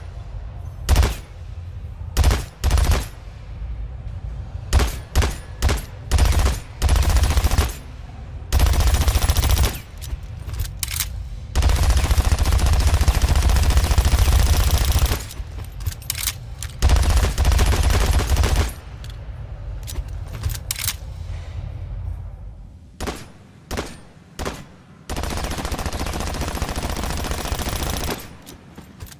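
Armat M39 submachine gun sound effect: single shots and short bursts at first, then several long bursts of rapid automatic fire, the longest lasting about three seconds.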